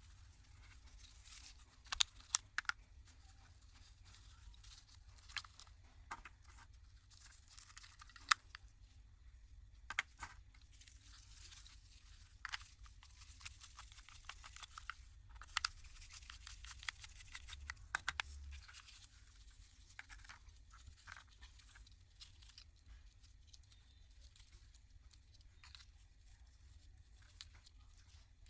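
Faint, intermittent scraping and rasping from small hand-tool work, broken by several sharp clicks.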